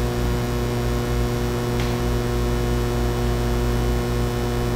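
Steady electrical mains hum in the audio system: a low buzz made of several even tones that holds unchanged.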